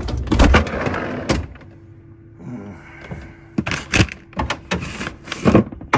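Refrigerator and freezer doors and compartments being opened and shut: a cluster of thuds and rattles in the first second or so, then more knocks and clatters in the second half.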